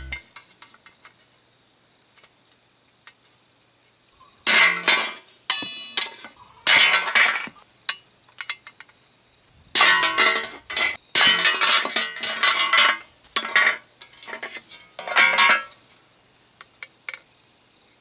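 A hammer tapping on the thin chrome-plated headlight section of a 1966 Chevy Biscayne grille to straighten the bent metal. The taps come in several quick bursts with pauses between, and the metal rings after each.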